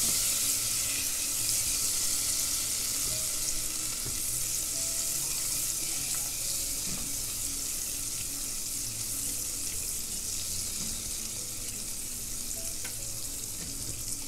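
Butter with a little olive oil sizzling in a saucepan as it melts: a steady high hiss that eases slightly over the seconds.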